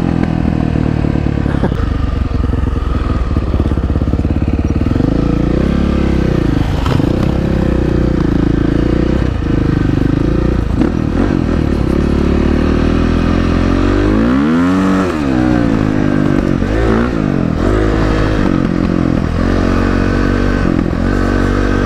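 Beta 500 RS single-cylinder four-stroke dirt bike engine through an FMF PowerCore 4 exhaust, heard from the rider's seat while riding. The pitch rises and falls repeatedly as the throttle is opened and closed, with one sharp rev up and back down about two-thirds of the way through.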